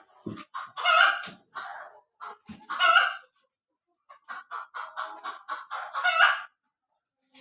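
Kadaknath chickens clucking in quick runs, with a few louder short calls among them.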